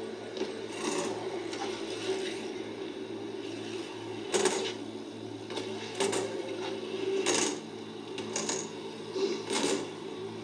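BMX bikes landing and rolling on skatepark ramps: several sharp clattering knocks and scrapes, the loudest about four seconds in, over a steady low hum of old tape audio.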